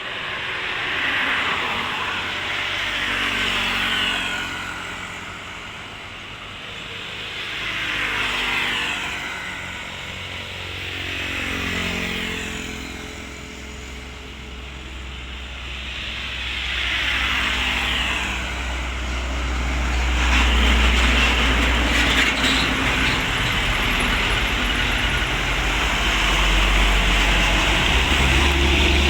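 Road traffic: vehicles pass one after another, about four pass-bys, each swelling and fading. From about two-thirds in, a heavy engine runs close, loud and steady, with a deep rumble.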